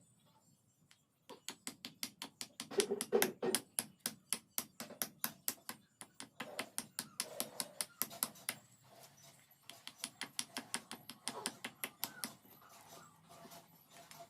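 Rapid hammer blows on metal, about five strikes a second, starting about a second in and thinning out near the end.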